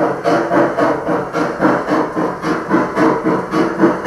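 Gauge 1 model BR 50 steam locomotive running, its chuffing going in an even beat of about four a second over a steady hum.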